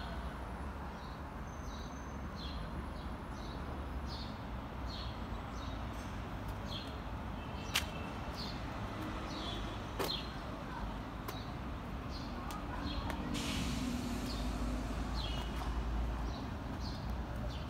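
A bird calling over and over in short high chirps, about one and a half a second, over a steady low street rumble. Two sharp clicks come near the middle.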